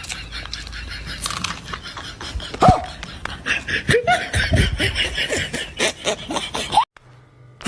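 People laughing and snickering in short bursts, breaking off suddenly near the end.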